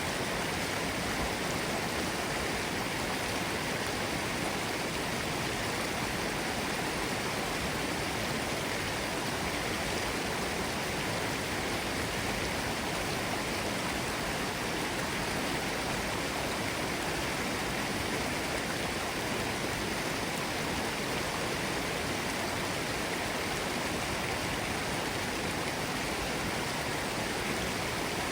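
Mountain stream bubbling and rushing over rocks, a steady even water noise.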